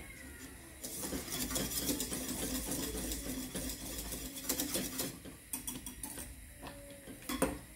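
Wire whisk beating thick mashed-potato chutney in a stainless steel saucepan: a rapid run of light clicking and scraping against the pan that eases off after about five seconds, with a couple of louder knocks near the end.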